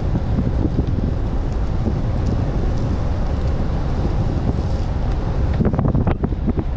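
Steady heavy wind buffeting on an action camera's microphone from the airflow of a fast road-bike descent, with a few short knocks or rattles near the end.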